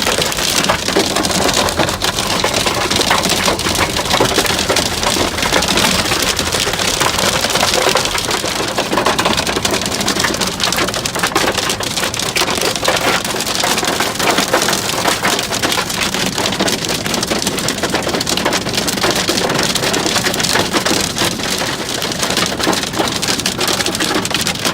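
Hail hammering on the roof and body of a car in a dense, steady clatter of countless small impacts, heard from inside the cabin.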